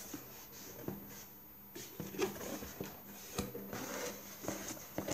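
Cardboard shipping box being opened and handled by hand: scattered scrapes, rustles and light knocks of cardboard flaps and the papers inside.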